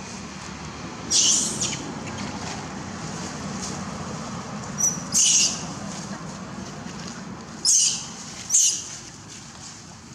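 Short, shrill, high-pitched animal squeaks, about five of them spread a few seconds apart, over a steady low background hum.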